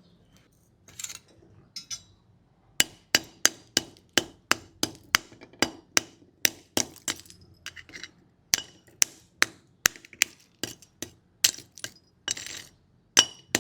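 A hammer tapping repeatedly, with sharp strikes about two to three times a second and a short metallic ring after each. A brief rasping noise comes near the end.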